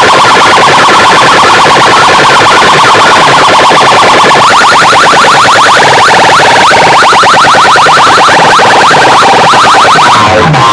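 DJ competition sound system playing a very loud electronic effect track: rapid, repeating synthetic chirp sweeps like a siren. Near the end it changes to a pattern with a bass line.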